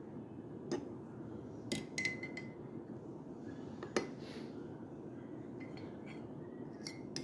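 A spoon clinking against a cup, in single sharp clinks spaced out: once about a second in, a short cluster around two seconds in, one around four seconds, and a few more near the end. A steady low hum runs underneath.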